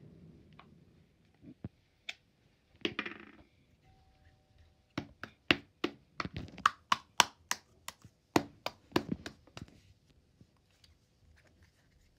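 Plastic Play-Doh tubs and lids being handled on a play tray: a brief rustle about three seconds in, then a quick run of sharp plastic knocks and taps, about three a second for some four seconds, as the tubs are opened and the dough is knocked loose.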